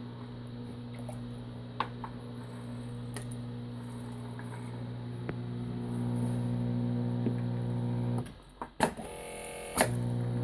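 An electric machine motor running with a steady hum that gets louder about six seconds in. It stops about eight seconds in, two sharp clicks follow, and the hum starts again near the end, like an automatic machine cycling.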